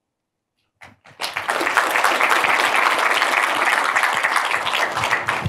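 Audience applauding, a dense steady clapping that starts about a second in.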